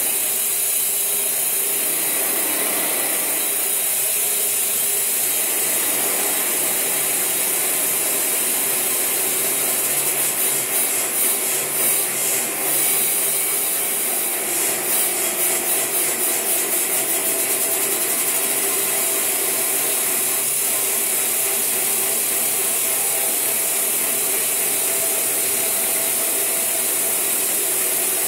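Electroacoustic live-electronics texture: a steady, dense, grainy noise with a strong high hiss. About ten seconds in it breaks into quick fluttering pulses for several seconds, then settles back into the steady texture.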